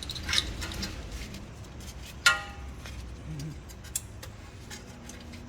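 Light clicks and metal handling noises as a lifted rear brake caliper is tied up with a bungee cord, with one sharp, ringing metal clink about two seconds in.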